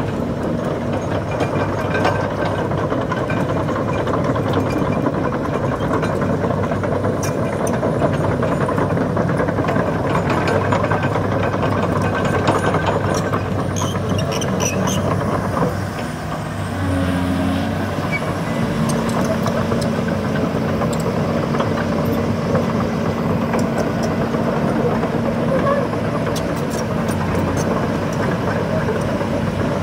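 Hydraulic excavator's diesel engine running steadily under load as it works, with scattered sharp clanks. The engine dips briefly about halfway through, then a steady humming tone holds to the end.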